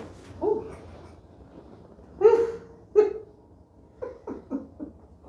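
A chiropractic patient's wordless vocal reactions just after a spinal adjustment. There is a short cry about half a second in and two louder yelps around two and three seconds, then a quick run of short laughs near the end.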